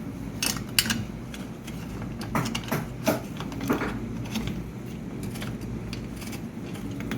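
Allen key turning a screw into a mullion connector on a shutter section: scattered metallic clicks and scrapes as the key turns and is reset.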